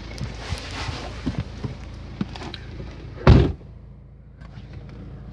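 Rustling and light knocks, then a car door slams shut a little over three seconds in. After the slam a low, steady engine hum is heard from inside the closed car.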